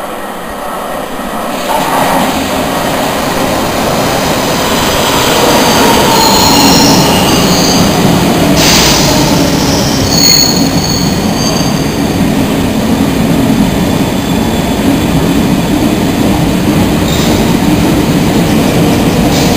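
London Underground Circle/District line train running into the platform, a loud rumble of wheels on rails that builds about two seconds in. High-pitched wheel squeal rises over it from about six to eleven seconds in.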